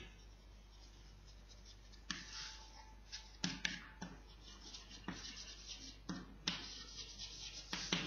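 Chalk writing on a blackboard: short scratchy strokes and sharp taps of the chalk against the board, sparse for the first two seconds, then coming every half second or so.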